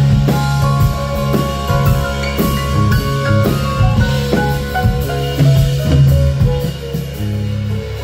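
Live band playing an instrumental passage: a drum kit keeps a steady beat under a bass line and a melody of held notes.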